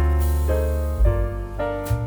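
Background music: piano-led chords with a bass line, a new chord about every half second.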